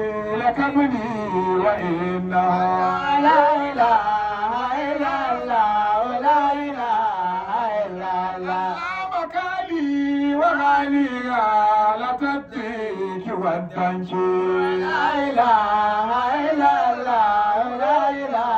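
A man singing an unaccompanied Hausa praise song (madahi) into a microphone, in long, wavering lines of held and bending notes with no pauses.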